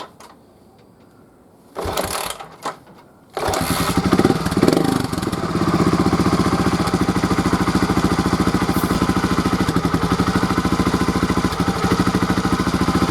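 Honda RTL250F trials motorcycle's single-cylinder four-stroke engine starting: a short burst of noise about two seconds in, then the engine catches a little over three seconds in, revs briefly and settles into a steady idle.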